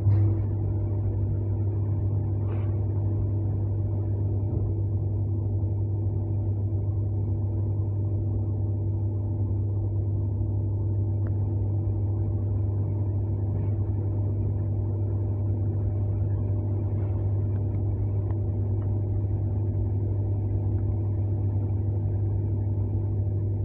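Interior of an ER9M electric multiple-unit car under way: a steady low electrical hum with a running rumble beneath it. A brief knock comes right at the start.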